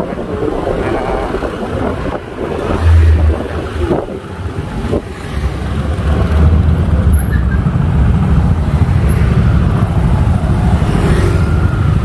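Yamaha Aerox scooter being ridden along a road: engine running under a heavy, low rumble on the microphone that gets louder about halfway through.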